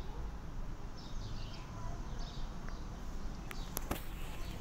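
Outdoor background noise with a few faint, high chirping calls about a second in and a few sharp clicks near the end.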